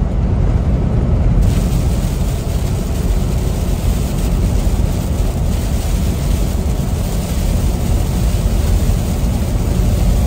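Kenworth T680 semi-truck cab at highway speed in heavy rain: steady engine and tyre rumble with rain hissing on the windshield. The rain hiss drops away for about the first second and a half while passing under an overpass, then returns.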